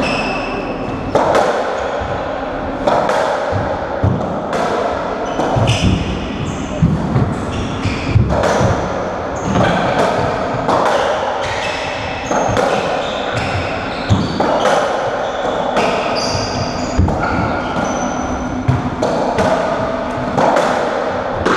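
Racketball rally in a squash court: the hollow rubber ball cracking off racquets, walls and floor about once a second, each hit ringing in the court, with short high squeaks from the players' shoes on the wooden floor.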